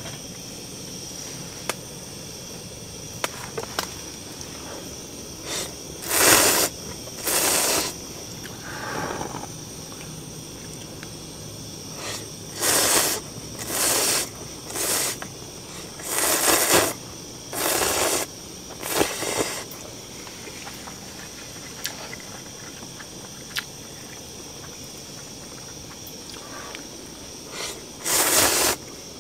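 Ramen noodles slurped in short noisy gulps, in groups of two or three with pauses between.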